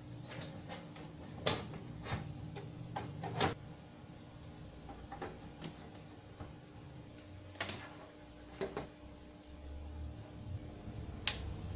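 Sheet-metal top cover of a power amplifier being set on its chassis and screwed down: scattered clicks and knocks of metal and a screwdriver, with a few sharper knocks among them.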